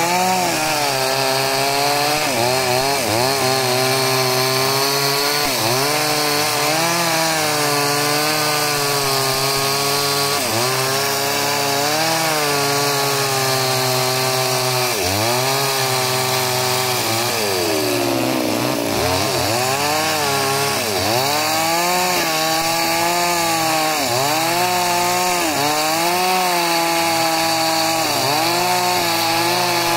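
Two-stroke chainsaw ripping a very hard log lengthwise at high revs. Its pitch sags under load and picks up again every few seconds, with one deeper drop and recovery a little past halfway.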